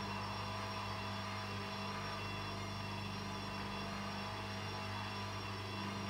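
Hoover Dynamic washing machine giving a steady, even hum with the drum not yet spinning, in the lead-up to its second spin.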